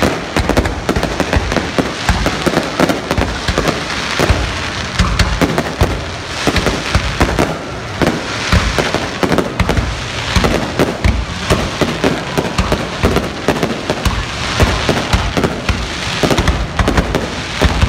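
Aerial fireworks display going off in a dense, continuous barrage of bangs, several a second, as shells are launched and burst overhead.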